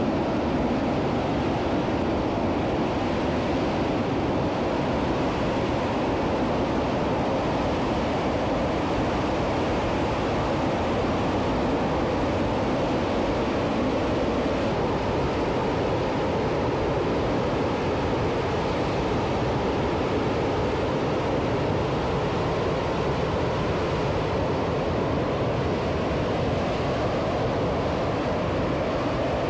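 Space Shuttle Main Engine, a liquid-hydrogen and liquid-oxygen rocket engine, firing at a test stand: a loud, steady roar that holds an even level throughout.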